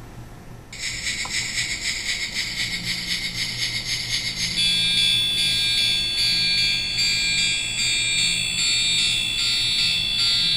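A toy diecast steam locomotive's electronic sound chip plays through its tiny speaker. A rapid, tinny chugging starts about a second in, and about four seconds in a high electronic tune joins it; the tune stops near the end while the chugging goes on.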